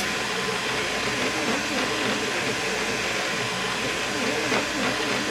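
3D printer running mid-print: a steady fan-like hiss with the stepper motors singing in tones that keep shifting up and down as the print head moves.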